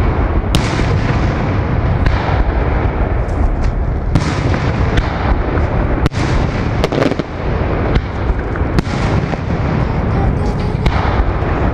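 Fireworks display: aerial shells bursting overhead in rapid succession, a string of sharp bangs and cracks over a continuous heavy rumble.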